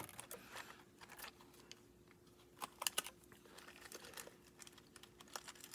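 Scattered light clicks and rattles of small fishing tackle being handled and sorted, with some plastic packaging crinkling; a quick cluster of sharper clicks comes about three seconds in.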